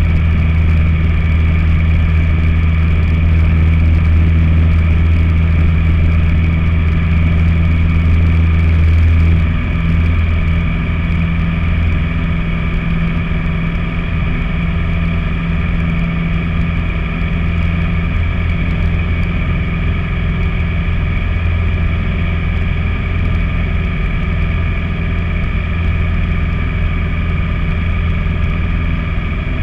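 Light bush plane's piston engine and propeller running at steady takeoff power, heard from inside the cockpit as a loud drone of several steady tones. About ten seconds in, the deep part of the drone changes and the sound drops slightly in level as the plane lifts off and climbs.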